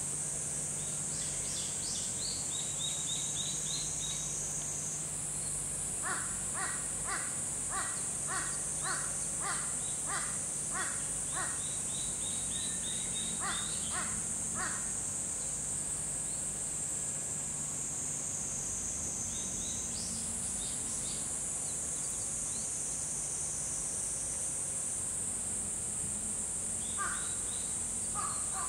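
A steady high insect drone shifts a little in pitch twice. Over it, a bird calls in a run of evenly spaced notes, about two a second, from about six to fifteen seconds in and again near the end. Short high twittering runs from a smaller bird come now and then.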